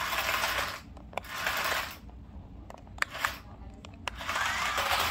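Toy RC car's small electric drive motors whirring in three short bursts as it drives over a tile floor on its repaired 3D-printed TPU wheel. The last burst has a rising whine, and a couple of sharp clicks fall in a pause about halfway through.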